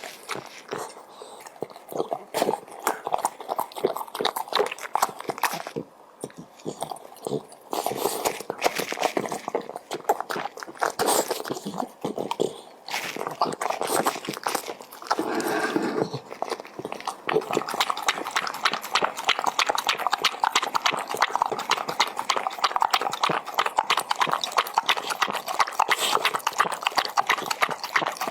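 A dog eating, chewing and crunching its food in a rapid run of clicks with a few short pauses; the clicking grows denser and steadier over the last ten seconds.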